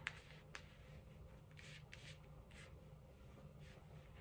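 Faint handling of tarot cards: two light clicks near the start, then a few short, soft swishes.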